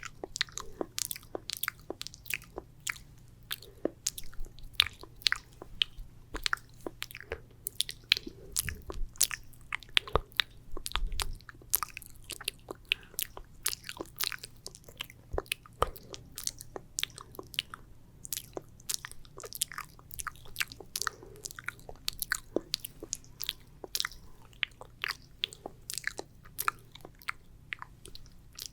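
Wet ASMR mouth sounds: sticky saliva clicks and smacks, irregular and several a second.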